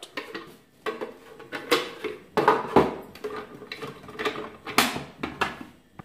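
Removable clear plastic water tank of an Arielli KM-501W espresso machine clattering and knocking as it is handled and slotted back onto the machine: a run of hollow plastic clunks, about eight sharp knocks in all.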